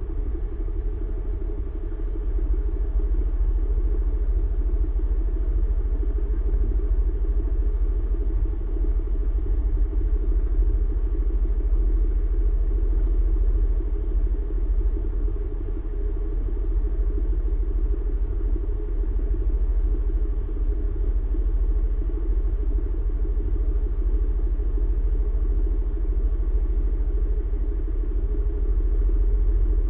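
Motor scooter engines idling in a pack of stopped scooters: a steady low rumble that does not rise or fall.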